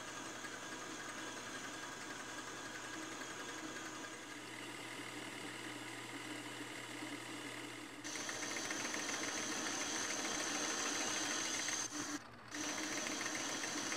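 Metal lathe running steadily as it turns a pulley, the tool taking a slight angled cut to crown the pulley's face. About eight seconds in it gets louder, with a steady high whine, and the sound briefly drops out near twelve seconds.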